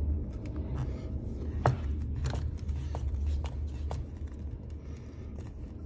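Hex screwdriver turning the motor-mount screws into the plastic mounts on a Traxxas X-Maxx chassis: scattered light clicks and scrapes of the tool in the screw heads, over a steady low hum.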